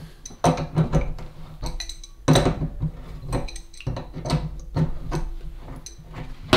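Adjustable spanner and brass ceramic-disc tap cartridge clinking against the chrome tap body as the loosened cartridge is unscrewed. Irregular metallic clicks and clinks, the loudest a little after two seconds in.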